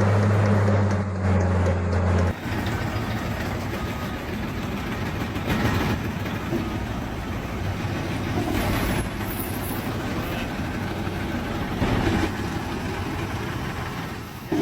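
Heavy diesel equipment running. A steady low hum in the first two seconds stops abruptly, and rough machine noise follows, swelling louder a few times.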